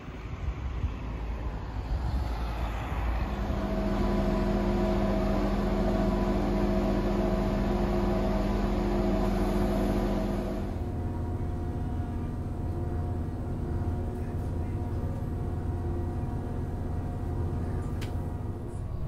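A DB Regio diesel railcar at a station platform, its engine running with a steady hum of several held tones. A little past halfway it changes abruptly to the low, steady rumble heard inside the railcar's passenger cabin as it runs.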